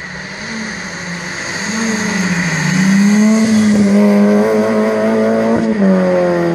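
Rally car engine running hard at high revs, growing louder as the car approaches. About five and a half seconds in the note breaks off briefly and comes back lower, as at a gear change.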